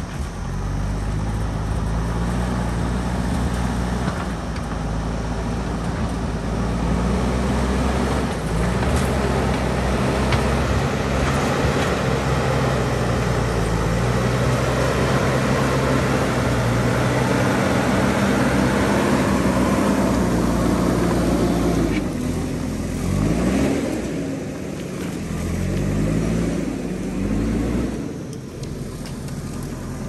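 JCB backhoe loader's diesel engine working hard as its front bucket pushes earth and rock along the road, a steady heavy drone with a rough noise of material over it. Near the end the engine revs up and down several times as the machine manoeuvres.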